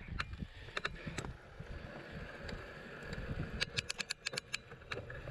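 Mountain bike rolling along a dirt and grass hill track: a steady low rumble of tyres and wind on the microphone, with sharp clicks and rattles from the bike, coming in a quick run about three and a half seconds in.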